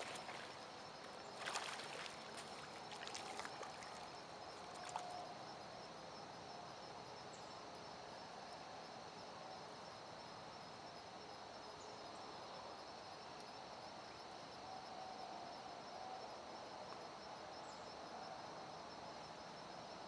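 Quiet outdoor ambience by a creek: a steady, high, pulsing insect trill over a faint even hiss, with a few short clicks and rustles in the first five seconds.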